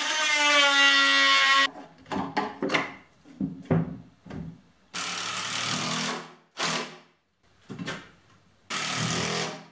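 Electric drill running: a steady motor whine that rises slightly in pitch for the first couple of seconds. This is followed by a string of short stop-start bursts on the trigger, then two longer, harsher runs about five and nine seconds in.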